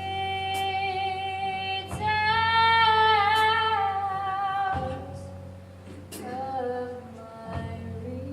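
A female voice singing long held notes in a song, over guitar accompaniment.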